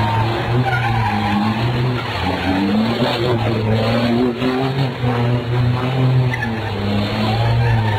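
A truck's engine running steadily under load while it spins a burnout, its tyres skidding and squealing on the pavement.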